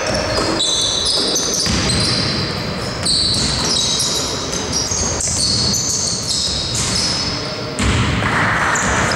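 Live basketball play echoing in a large sports hall: the ball bouncing on the court, players moving and calling out, with the noise rising noticeably near the end.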